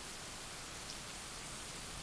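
Steady rain, an even hiss with one sharper drop tick about a second in.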